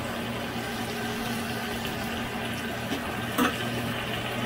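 Marinade and water sizzling and simmering around a chicken in a grill pan on the stove, a steady hiss with a low hum underneath. Metal tongs click against the pan once, about three and a half seconds in.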